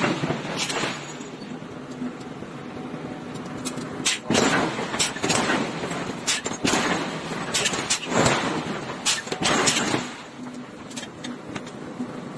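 A series of irregularly spaced metal-on-metal hammer blows, each with a short ring, driving a punch through a red-hot steel forging, over a steady background hum.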